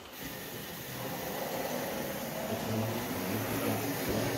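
Model train running along the track toward the microphone: a steady mechanical hum from its motor and wheels, growing louder as it nears.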